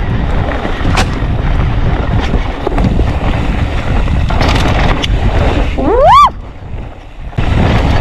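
Wind buffeting the microphone and knobby tyres rolling over dirt singletrack on a mountain bike descent. About six seconds in, a short squeal rises in pitch and breaks off, and the rushing noise then drops away for about a second before it returns.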